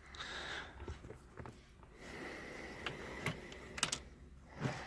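Scattered light clicks and taps, about half a dozen spread irregularly, from small shifter bushings and shifter parts being handled and pressed into place by hand.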